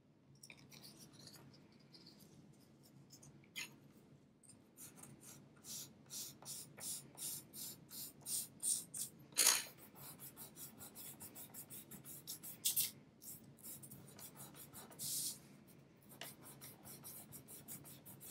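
Charcoal pencil scratching on paper in quick short strokes, several a second, starting a few seconds in, with a few longer strokes later on.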